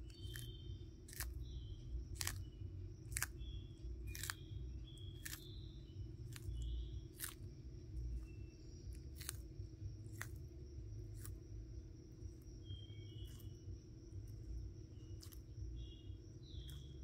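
Hermann's tortoise biting and chewing romaine lettuce: crisp crunches of the leaves, about one a second, irregular, with a short pause past the middle.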